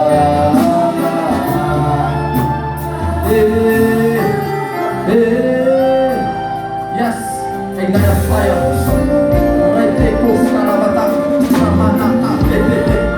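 Gospel worship music with singing, a bass line and jingling percussion such as a tambourine.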